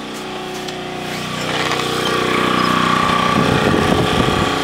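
Small gasoline generator engine running steadily under load, growing louder about a second and a half in.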